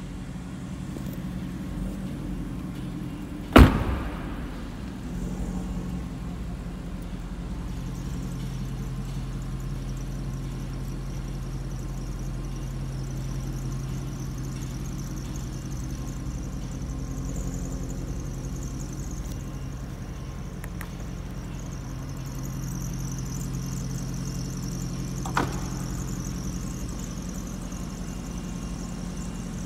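A car door shutting with a single loud thump about four seconds in, over a steady low hum. A smaller click comes near the end.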